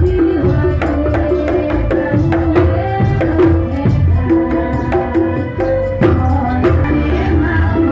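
Jaranan dor ensemble music: hand drums and a deep bass drum keep a steady beat under a wavering melody line that bends in pitch.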